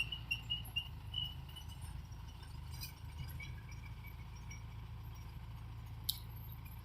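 Low, steady rumble of a distant engine, with a few faint high chirps in the first second and a single sharp click about six seconds in.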